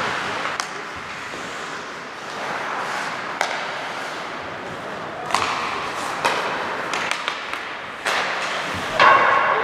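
Ice hockey play on a rink: skates scraping the ice under a string of sharp clacks and thuds from sticks, puck and boards, the loudest about nine seconds in.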